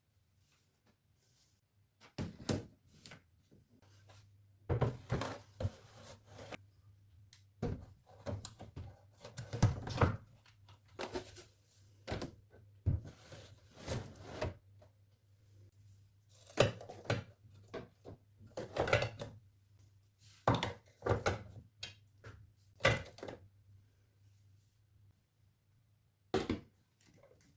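Household objects being handled and set down on hard surfaces in a small, echoing bathroom: irregular knocks, clunks and short rustling clatters, some in quick clusters, with a faint steady low hum underneath.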